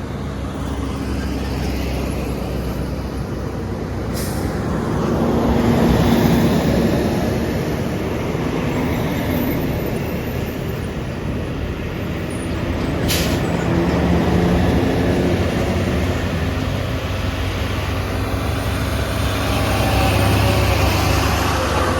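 Heavy truck's diesel engine labouring up a steep climb, its note swelling and easing several times. Two brief sharp hisses cut in, about four seconds in and again near the middle.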